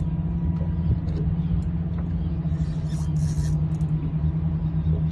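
Boat engine idling with a steady low hum, under a light rumble and a few faint high ticks; a brief hiss about three seconds in.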